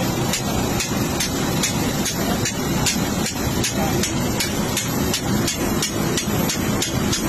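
CFM56 turbofan's fan clattering as it turns slowly, windmilling with the engine shut down: a steady run of knocks, a little over two a second. The clatter is normal for this engine: the fan blades sit loosely in their root slots and rock and knock as the fan turns.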